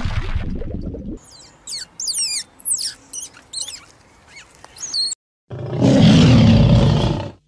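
Small birds chirping in quick high, sweeping calls for a few seconds. After a short silent gap, a lion roars loudly for about two seconds, the loudest sound, then cuts off.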